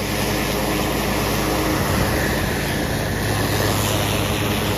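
Gas-powered pressure washer running, its engine humming steadily under the constant hiss of high-pressure water spray.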